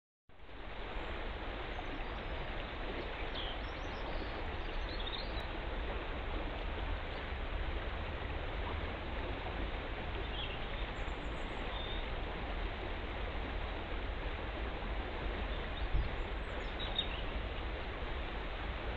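Fast river water rushing steadily over rapids, with a deep rumble under it. A few faint, short high chirps come through now and then, and a soft thump sounds about sixteen seconds in.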